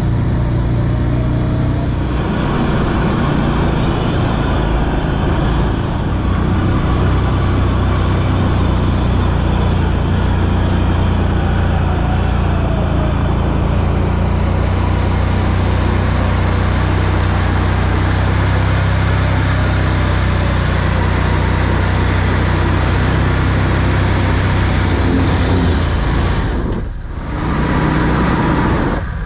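A vehicle engine runs steadily at an even speed, with a deep, constant hum, and drops away briefly near the end.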